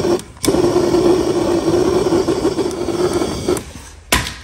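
Handheld propane torch flame burning steadily with a low hum, briefly cutting out just after the start. It stops about three and a half seconds in, followed by a single sharp click.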